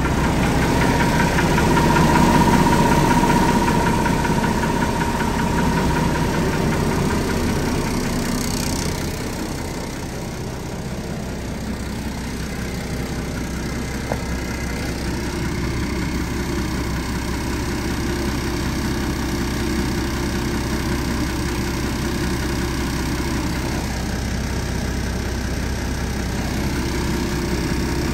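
Unimog 416's diesel engine idling steadily while its air compressor fills a tire, with a short hiss about eight or nine seconds in.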